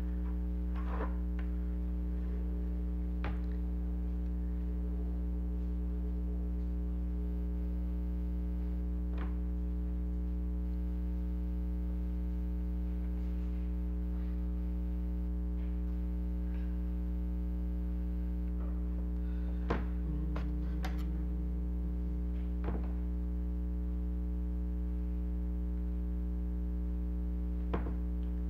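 Steady low electrical hum, even throughout, with a few small scattered clicks and taps from tools working on a toy's circuit board, several of them close together near the end.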